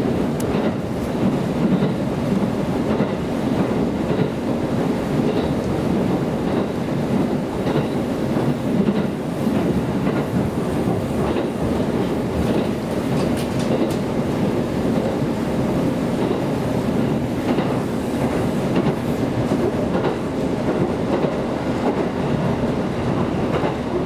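Inside a JR Kyushu KiHa 200 diesel railcar running steadily along the line: a continuous rumble of the car and its wheels on the rails, with occasional faint clicks as the wheels cross rail joints.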